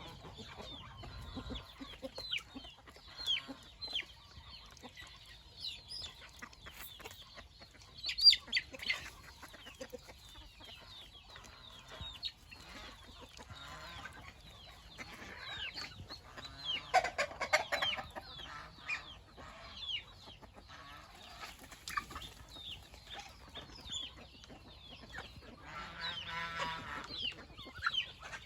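A flock of chickens clucking, with many short high calls throughout and louder bursts of calling about eight seconds in, around seventeen seconds, and near the end.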